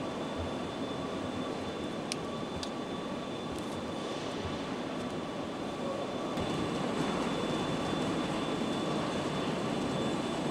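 Steady machinery hum and hiss of a car assembly hall, with a few faint steady tones running through it. Two short sharp clicks come about two seconds in, and the noise grows a little louder about six seconds in.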